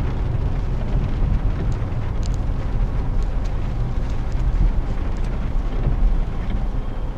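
Steady low rumble inside a car's cabin as it rolls slowly: the engine running and the tyres on a wet road, with a few faint ticks.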